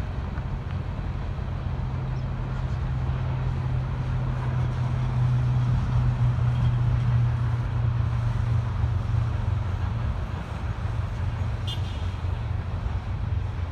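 A BNSF coal train's hopper cars roll past with a steady low rumble. A pickup truck drives by in front, and the sound swells about five to eight seconds in.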